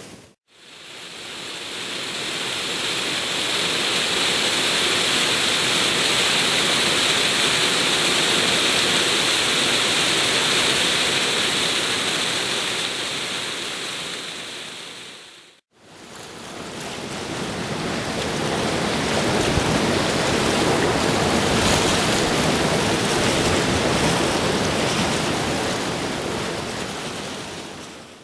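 Rushing whitewater of a small river pouring over icy ledges and rapids: a steady rush of churning water that fades out to silence about halfway through and builds back up, the second part with more low rumble.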